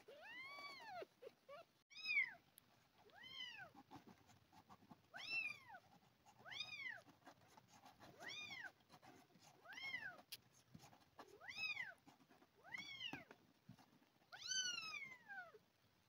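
A hungry orphaned kitten, about 2½ weeks old, meowing over and over in high-pitched calls that rise and fall in pitch, about one every second and a half.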